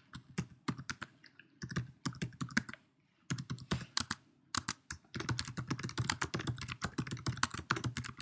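Typing on a computer keyboard: short irregular runs of keystrokes at first, then a fast, continuous run of key clicks from about five seconds in.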